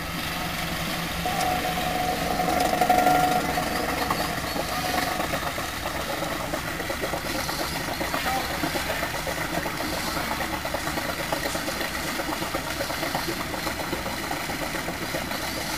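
Land Rover Defender's engine running while the vehicle sits in deep water. It rises and grows louder for a couple of seconds near the start, then settles to a steady, fast, even chug.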